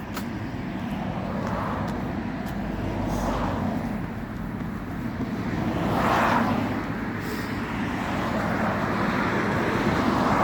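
Road traffic on a main road: a steady rush of passing cars, with one passing close about six seconds in.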